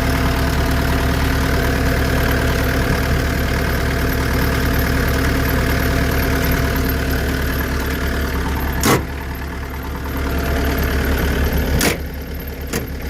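Diesel skid steer engine idling steadily, with three sharp clacks in the last few seconds.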